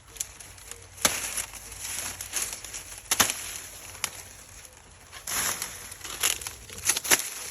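Dry corn plants rustling as ears of corn are snapped off the stalks by hand, with several sharp cracks among the rustling.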